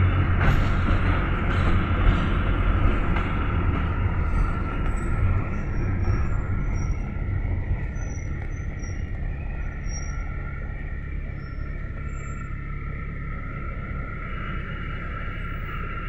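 Inside a GAZelle Next route minibus under way: steady engine and road rumble with a few light rattles early on, growing quieter over the first six seconds or so and then holding steady.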